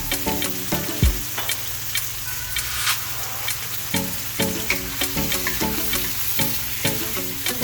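Sliced chicken breast sizzling in hot olive oil in a frying pan, stirred with a utensil that clicks and scrapes against the pan now and then.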